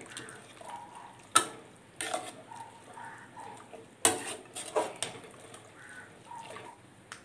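A spoon stirring a thick beef and onion mixture in an open pressure cooker, scraping along the pot and knocking against its metal sides about six times at irregular intervals.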